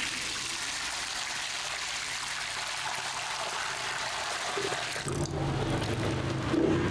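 Milky liquid poured from a pot into the metal bowl of a dough-kneading machine: a steady splashing pour that thins to a trickle. A low hum joins about five seconds in.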